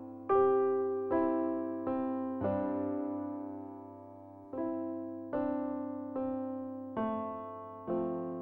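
Background music: slow electric piano notes, each struck and left to fade, about one a second over a steady low drone.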